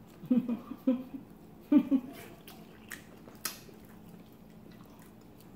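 A person eating a bite of sausage: a few short vocal murmurs in the first two seconds, then quiet chewing with scattered sharp mouth clicks and smacks.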